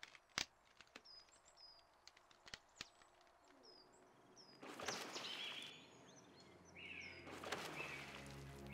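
Quiet waterside ambience: a small bird repeats a short falling chirp, with a few sharp clicks during the first three seconds. Then water splashes twice, briefly about five seconds in and again near the end.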